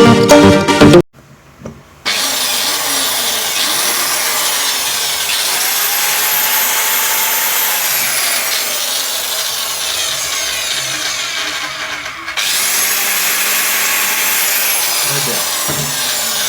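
Music for the first second, then after a short pause a JCB electric tile cutter with a newly fitted armature runs on a test after repair, its pitch rising and falling slightly midway. It cuts out briefly about twelve seconds in and runs again.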